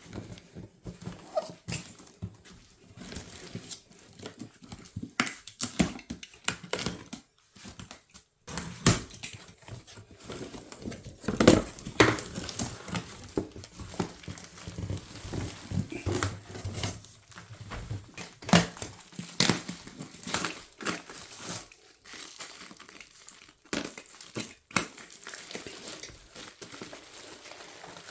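Packing material crinkling, rustling and tearing in irregular handling noises as a shipped parcel is unpacked.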